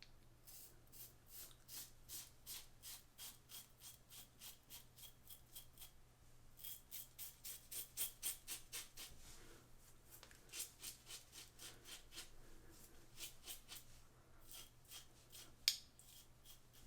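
Double-edge safety razor (RazoRock Lupo 72) scraping through lathered stubble in quick short strokes, about three to four a second, in several runs with brief pauses. A single sharp click near the end.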